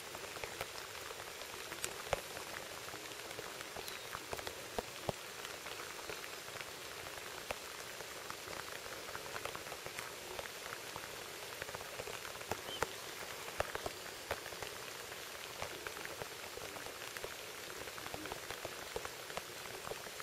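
Steady rain falling on a pond, an even patter with scattered sharper drop hits.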